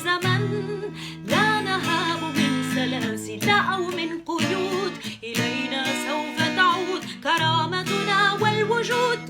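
Instrumental passage of a song, led by plucked and strummed guitar.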